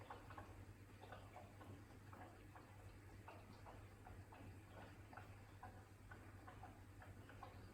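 AEG dishwasher running its prewash, heard faintly: irregular light ticks, two or three a second, over a low steady hum.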